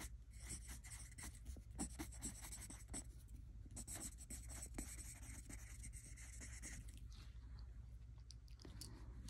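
A pen writing on lined notebook paper: soft, quick scratching strokes that die down about seven seconds in.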